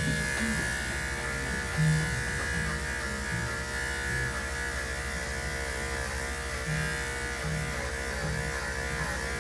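Electric dog-grooming clippers running steadily with an even buzz as they clip a dog's coat.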